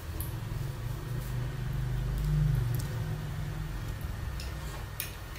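Low engine rumble of a passing vehicle, swelling to its loudest about halfway through and then fading, with a light click near the end.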